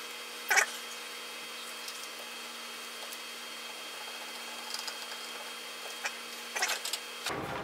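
A hand screwdriver driving a screw through a plastic capacitor bracket into the wooden crossover board, heard as a few short clicks and taps over a steady faint hum. The sharpest click comes about half a second in and a small cluster near the end.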